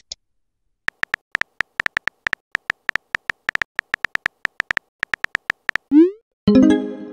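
Synthetic keyboard-typing clicks from a texting-story app, a steady run of short electronic ticks lasting about five seconds. Near the end comes a rising swoosh and then a brief electronic chord, the app's message-sent sound.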